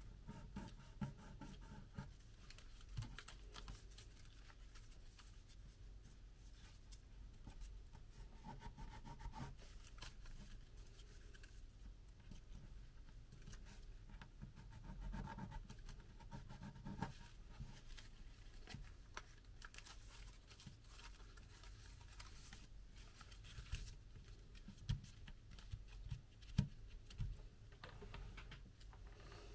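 Soft paper rustling and crinkling as fingers fold and press the legs and body of an origami spider, with a few sharper ticks toward the end.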